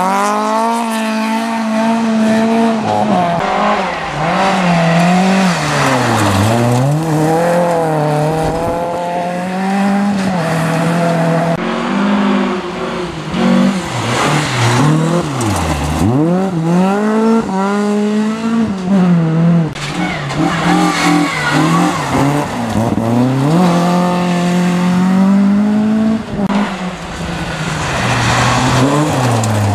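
Volvo rally cars at speed on a gravel stage, passing one after another. Their engines rev hard, the pitch climbing and dropping again and again, with some tyre squeal.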